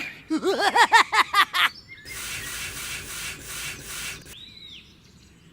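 A quick run of about eight pitched blips, each rising and falling, then a rubbing, scraping noise for about two seconds, and one short high chirp near the end.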